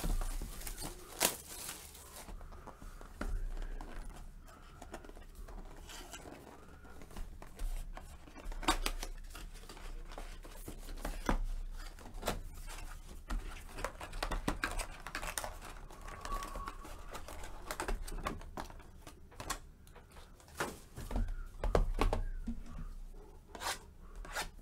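Plastic shrink wrap crinkling and tearing as a sealed Panini Select trading-card box is unwrapped and opened by hand, with irregular sharp crackles and rustles.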